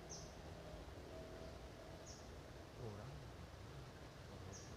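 Quiet creekside ambience with a bird's short, high chirp repeated three times, about two seconds apart. A brief low murmur comes about three seconds in.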